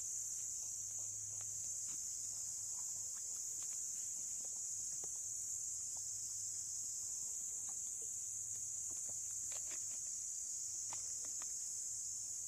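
Steady, high-pitched buzzing of an insect chorus that never lets up. Over it come a few faint clicks and crinkles from a plastic water bottle being handled.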